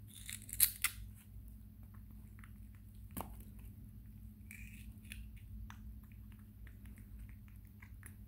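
A baby monkey bites and chews raw bitter melon: wet crunching with small clicking bites, loudest about half a second in, and one sharp snap about three seconds in.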